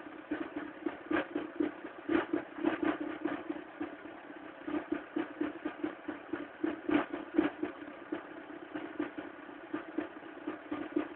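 Mk3 1.4 mono-injection four-cylinder engine idling unevenly, its steady note broken by irregular clattering knocks: the tractor-like sound that the owner calls a bad engine sound.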